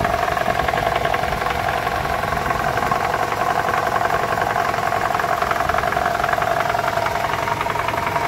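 Toyota 2AR-FE 2.5-litre four-cylinder engine idling in drive under load, heard close up at the oil pan, with a steady fast rattle. The owner traces the rattle to the balance shaft.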